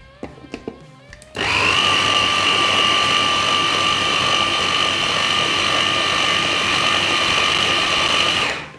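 Electric mini chopper (Moulinex Multi Moulinette): a few light clicks as the motor head is seated, then about a second in the motor starts and runs at full speed with a steady high whine for about seven seconds, puréeing roasted red peppers with soft garlic-and-herb cheese, and stops shortly before the end.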